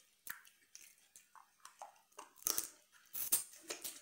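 Close-miked eating of snow crab: irregular crunches and clicks of crab shell being cracked apart and meat being chewed, loudest about two and a half and three and a quarter seconds in.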